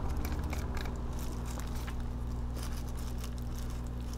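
Small clicks and scrapes of hands working a wire into a screw terminal block on a circuit board, over a steady low hum.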